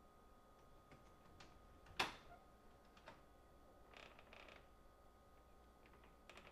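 Door being worked: a few faint clicks, a sharp latch click about two seconds in, then a short hinge creak a couple of seconds later.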